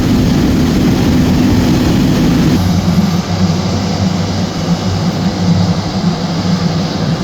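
A heavy engine running steadily, with a low hum; its note changes about two and a half seconds in.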